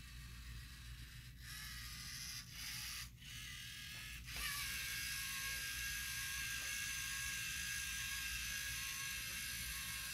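LEGO Mindstorms EV3 robot's electric motors and plastic gears whirring as it drives. The whine starts about a second and a half in, cuts out briefly twice, then runs steadily and a little louder.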